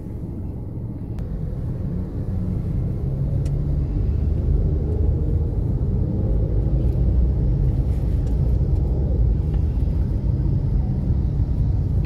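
Engine and road rumble of a moving car heard from inside the cabin, growing louder over the first few seconds and then steady.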